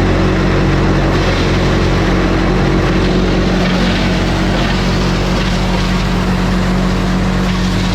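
International 1256 tractor's turbocharged six-cylinder diesel engine running steadily at a constant speed.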